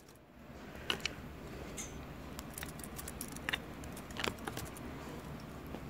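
Clothes hangers clicking against each other and the rack as garments are pushed aside and one is pulled off, a few light separate clicks over a faint steady hum.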